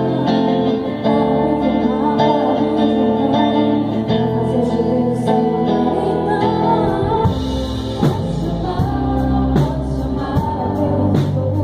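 A band playing live in rehearsal: a voice singing over guitar and bass, with drum kit hits and cymbals coming in about seven seconds in.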